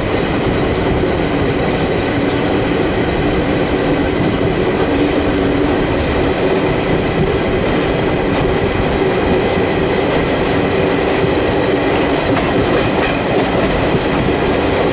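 Passenger train running steadily along the track: a continuous rolling rumble of wheels on rail with scattered sharp clicks.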